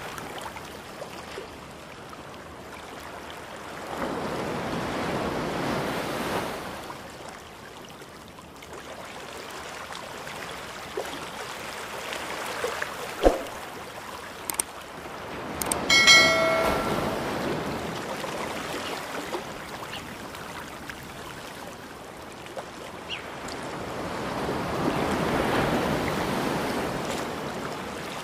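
Ocean waves rolling in and washing back, a rushing sound that swells and fades about every ten seconds. A short ringing tone sounds once about halfway through.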